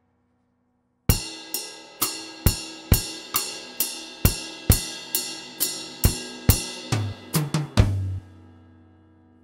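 Acoustic drum kit played solo: after a second of silence, an even beat of cymbal and drum hits a little over twice a second, then a quick fill of lower, pitched drum hits ending in a loud cymbal-and-drum hit that rings out and fades.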